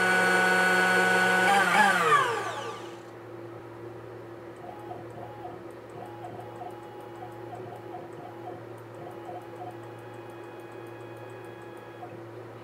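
Carbide 3D ER11 compact trim router, used as a CNC spindle, running at speed and then switched off, its whine falling in pitch as it winds down over a second or so. After it stops, a faint steady hum remains, with a soft warbling tone from the stepper motor jogging the Y-axis bed.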